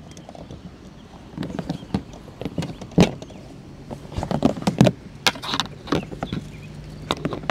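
Clicks, knocks and clatter from an electric pressure cooker, its lid and power cord being handled and set up, with a low steady hum that comes in about halfway through.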